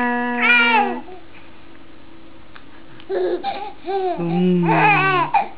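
A baby laughing and squealing in short, high bursts, in the first second and again from about three seconds in, answering a woman's drawn-out calls.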